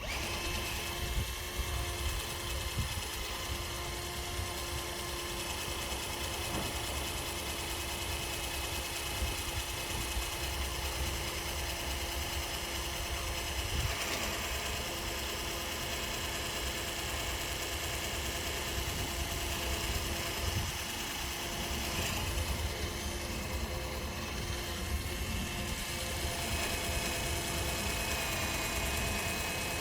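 Electric drill running steadily, its bit pressed into oiled trailer metal and barely cutting; the bit is one that he thinks was ruined by earlier drilling.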